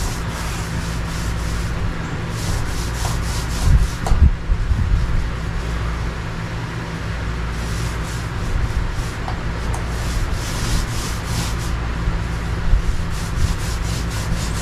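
Paint roller rolling exterior paint onto grooved T1-11 plywood siding: a rasping rub in repeated strokes, with a couple of knocks about four seconds in, over a steady low hum.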